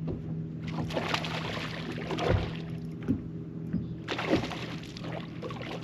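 Water sloshing and splashing aboard a fishing boat, with a steady low motor hum underneath and a few sharp thumps, the loudest about two and four seconds in.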